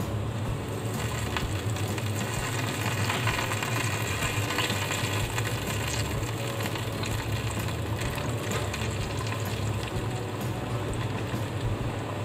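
Chicken pieces deep-frying in hot oil, sizzling steadily with fine crackling, over a steady low hum.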